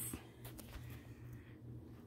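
Quiet room tone: a faint low hum with a few soft clicks.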